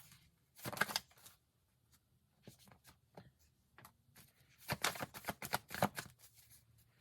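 A tarot deck being shuffled: a short burst of card riffling about a second in, a few soft card clicks, then a longer run of shuffling around five seconds in.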